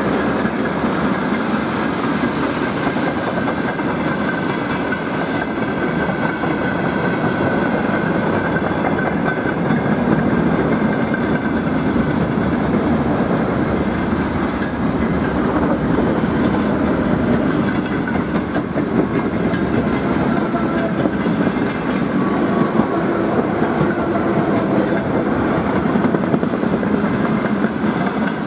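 Trains passing at close range: the steady rolling noise of steel wheels on rail with clickety-clack over the rail joints, from a freight train of tank wagons and an electric multiple unit going by.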